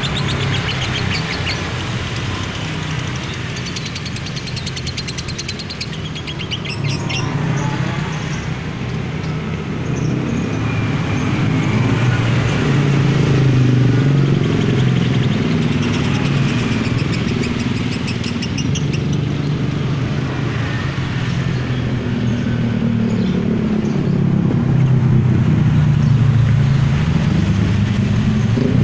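Steady rumble of passing cars and motorbikes, with a caged female lovebird giving a rapid, buzzy chattering trill (the 'ngekek' song) at the very start and again about six seconds in.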